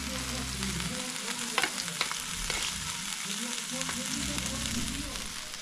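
Meat sizzling steadily on a tabletop Korean barbecue grill, with a few sharp clicks.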